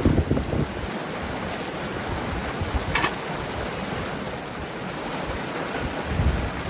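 Steady rushing of river water, with low wind rumble on the microphone at the start and again near the end, and a single sharp click about three seconds in.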